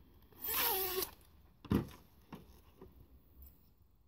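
A zip being pulled apart along the end strips of a flexible solar awning kit: one quick rasp with a wavering pitch. A soft thump follows a little under two seconds in, with a couple of light taps.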